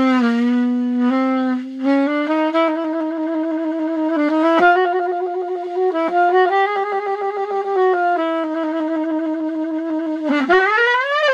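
A solo saxophone playing a slow line of long held notes that steps up a little in pitch, ending in a quick upward slide about ten seconds in.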